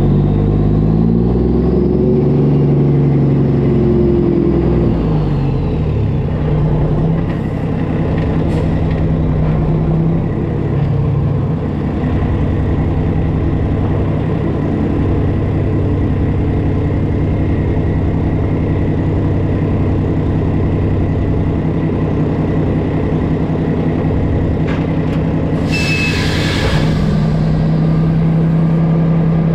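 Mack truck's diesel engine running while the rig manoeuvres, its pitch sliding down and back up in the first few seconds, then holding a steady note. About 26 seconds in there is a short hiss of air from the air brakes, and the engine settles to idle.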